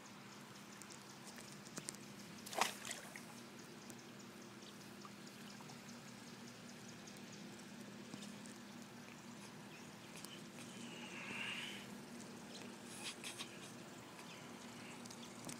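Faint swimming-pool water trickling and lapping over a steady low hum, with scattered clicks, a sharp knock about two and a half seconds in, and a brief splash about eleven seconds in.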